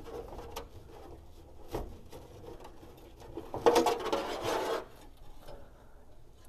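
Car wiring harness being pulled and rerouted behind a bare dash frame: rustling and rubbing of wires against the dash, with a few light clicks and a louder scraping rustle a little past halfway.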